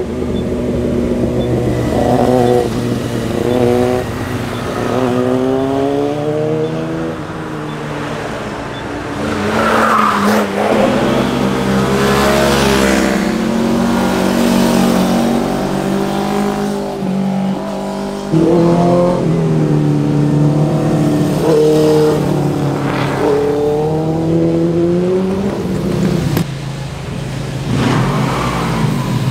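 Motorcycles accelerating past one after another. Each engine's pitch climbs and drops back again and again as the rider shifts up through the gears. A louder bike comes in suddenly a little past halfway.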